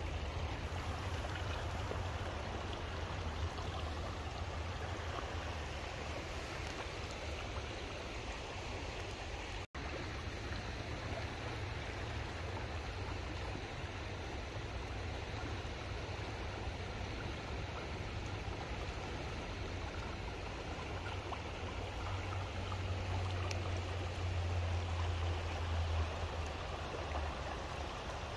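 Shallow river current running over a rocky bottom: a steady rush of water with a low rumble underneath, cutting out for an instant about ten seconds in.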